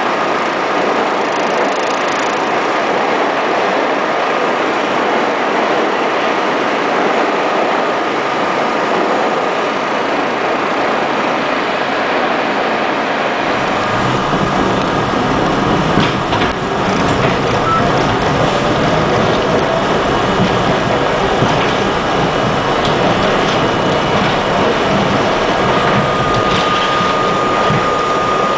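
Budd R32 subway train running at speed through a tunnel: a loud, steady rumble of wheels on rail with a thin, steady high whine. The low rumble gets heavier about halfway through, with a few sharp clacks shortly after.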